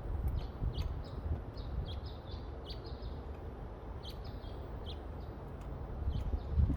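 Small birds chirping in the background, short high chirps a few times a second, over a steady low rumble.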